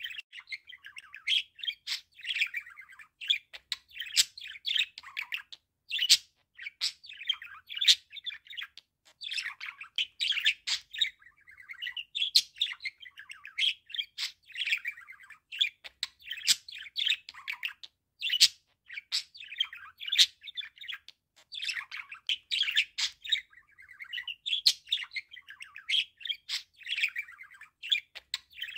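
Budgerigar warbling: a rapid, continuous chatter of chirps and sharp clicks, broken by brief pauses every second or two.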